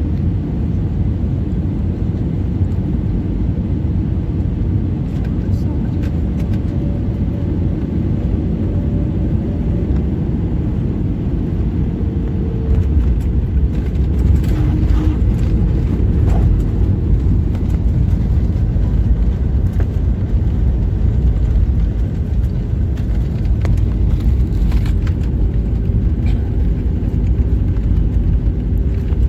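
Cabin noise of an Airbus A320neo landing, heard from inside at a window seat: a steady low rumble of airflow and engines on short final. It grows louder about twelve seconds in as the wheels touch down, then continues through the rollout on the runway, with scattered rattles and knocks.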